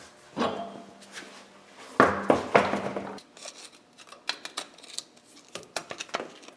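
Metal hand tools and parts being handled at a truck's front wheel hub and suspension. A louder clatter with a low hum comes about two seconds in, then a run of light, sharp metallic clicks and ticks.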